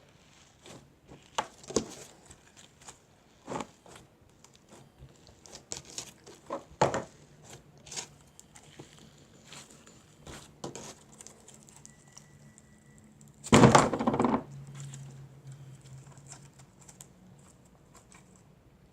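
Hands working glitter-filled silly putty: scattered small clicks and crinkles, with one louder noisy burst lasting about a second about three-quarters of the way through.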